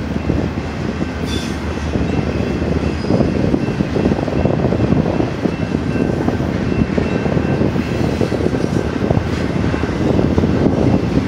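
Double-stack intermodal well cars rolling past: a steady rumble and clatter of steel wheels on the rails, with a faint high ringing tone from the wheels.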